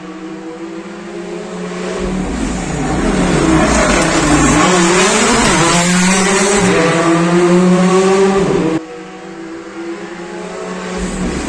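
R5 rally car's turbocharged four-cylinder engine at speed, growing louder as it approaches; about four seconds in the pitch drops as it brakes and shifts down, then climbs again as it accelerates hard past. Near nine seconds the sound cuts abruptly to another, quieter engine.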